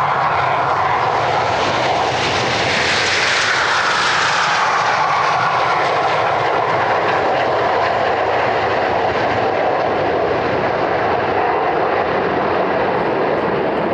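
Red Arrows BAE Hawk T1 jets' Rolls-Royce Turbomeca Adour turbofan engines running at takeoff power as a formation rolls down the runway and climbs away. The whine falls in pitch about three seconds in as the jets pass.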